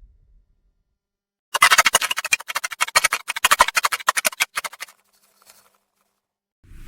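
Sci-fi 'cyberpunk hacking' sound effect: a dense, rapid run of sharp clicks and clatter lasting about three seconds, starting after a short silence and trailing off into a few faint ticks. Just before the end, a steady rush of wind-like noise begins.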